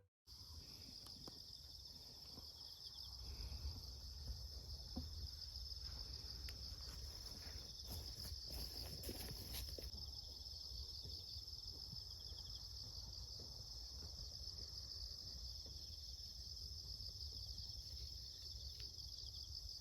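Insects trilling steadily in a continuous high chorus over a low rumble, with a few faint knocks about halfway through.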